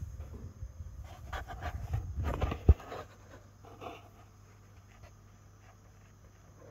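Rustling and handling noise with scattered faint clicks and a low rumble, ending in one sharp knock about two and a half seconds in. Then quiet room tone with a faint low hum.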